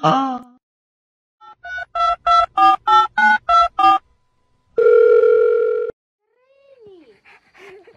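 Telephone keypad dialing: about nine quick touch-tone beeps in a row, followed a second later by one steady telephone tone lasting about a second.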